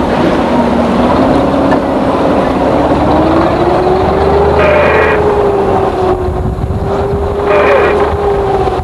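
A small harbour boat's engine running steadily and loud. Its pitch rises gradually over the first four to five seconds as it picks up speed, then holds level.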